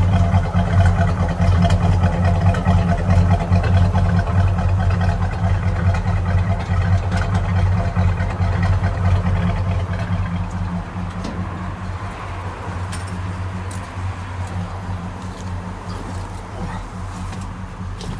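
A 1972 Buick Skylark's engine idling steadily, with a deep, even exhaust note at the tailpipe. The sound grows quieter about halfway through, and a few faint clicks come near the end.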